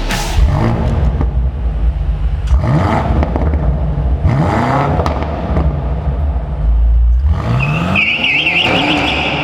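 BMW F90 M5's twin-turbo V8 revving hard several times, its pitch rising and falling with each rev. Near the end the tyres squeal in a wavering high tone as they spin.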